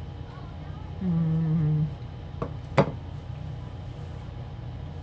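A woman's closed-mouth "mmm" of enjoyment, held for about a second, with her mouth full of egg-and-toast sandwich; two short clicks follow a little later.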